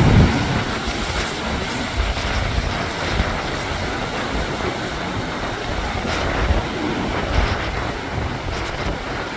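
Wind buffeting the microphone: a steady rush with an uneven, gusting low rumble.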